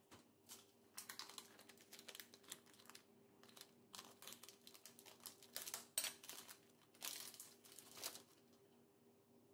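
Plastic packaging on a block of cheddar cheese crinkling as it is handled and peeled off, in several bursts of a second or two.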